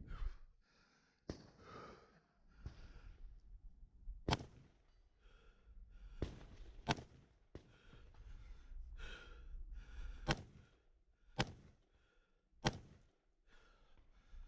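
Single gunshots, seven sharp cracks irregularly spaced one to three seconds apart, with hard breathing between them.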